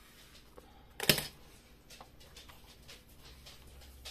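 Quiet handling of a metal-bladed scraper and card on a cutting mat, with small clicks and one sharp, loud clack about a second in.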